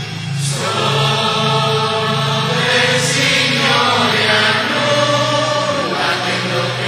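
Church congregation singing an Italian hymn together, in long held notes.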